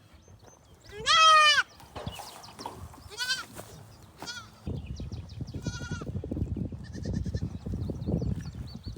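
Goats bleating: one loud, wavering bleat about a second in, then fainter bleats around three and six seconds in. From about halfway, a steady low rumbling clatter joins.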